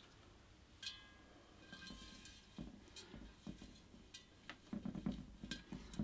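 Tall glass vase clinking with a brief ringing tone as it is knocked about a second in, then soft dull knocks and rustling as a hand presses moss into the bottom of the glass.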